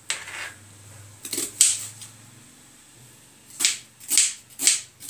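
Kitchen knife chopping an onion on a plastic cutting board: sharp, irregular knocks of the blade hitting the board, a couple early, a pause, then a quicker run of three or four near the end.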